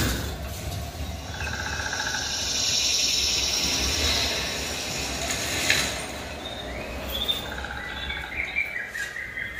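Forest soundtrack of a demo film played through a 7.1.2 home-theatre speaker system: insects and birds chirping over a low rumble. The birdsong grows clearer in the second half.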